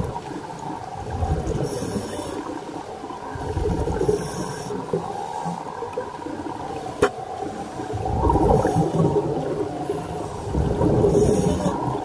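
Scuba divers' regulators heard underwater: short hissing inhalations alternate with rumbling, gurgling surges of exhaled bubbles, repeating every few seconds. A single sharp click sounds about seven seconds in.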